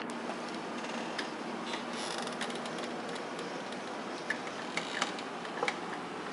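Steady hiss of a small all-in-one nano reef aquarium's running filter and water flow, with a few light, irregular clicks.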